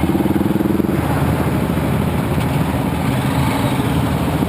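Motorcycle engine running steadily at low revs, with a fast, even firing pulse.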